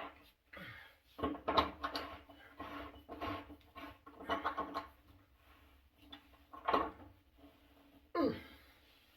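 Irregular series of short creaking, rubbing strokes from hand-tool work on an electric water heater's heating element, with a falling squeak near the end.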